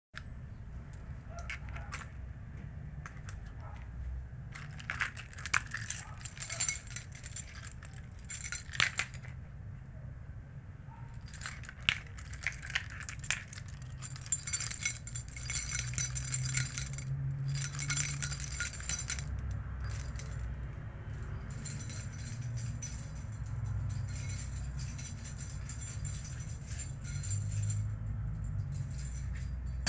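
A bunch of metal keys being jangled and shaken by hand in irregular bursts of bright metallic jingling, most vigorous and frantic in the middle stretch, with brief pauses between.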